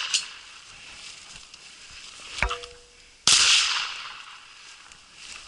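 Shotgun shots: the ringing tail of one shot at the start, a sharp crack about two and a half seconds in, and a second loud shot just past three seconds that rings off over about a second.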